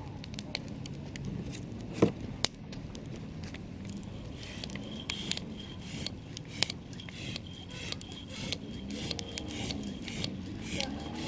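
Wood campfire crackling, with scattered sharp pops and one loud pop about two seconds in. From about four seconds in, a quick, evenly repeating high-pitched pulsing runs alongside the crackle.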